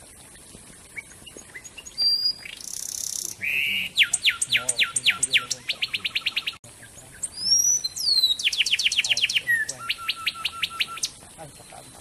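A wren singing two song phrases, each a run of quick down-slurred whistled notes ending in a fast trill. The first phrase opens with a short buzzy note.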